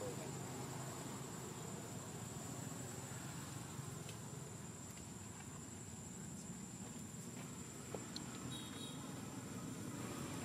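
Outdoor background with a steady, high-pitched insect drone, as of crickets, and a few faint ticks. A brief faint chirp comes about eight seconds in.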